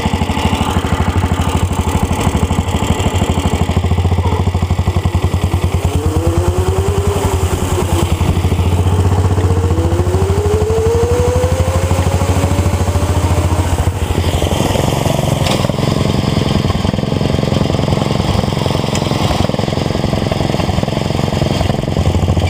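Small ride-on lawn tractor engines running hard at speed, with a steady, loud firing beat. Rising whines come in the middle, and the engine note climbs to a higher pitch about fourteen seconds in.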